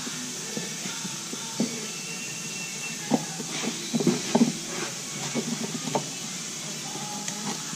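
Handling noise as a round LED lamp is pressed and pried into its rubber grommet with a thin tool: scattered small clicks and scrapes, busiest from about three seconds in, over a steady background hiss.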